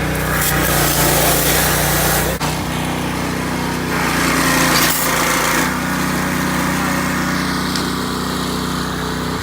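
Small engine running at a steady speed, with a hissing sound over it that comes and goes twice.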